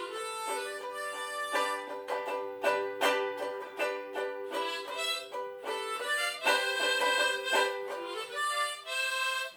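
Background music: a tune of held notes over a run of short, separately struck notes.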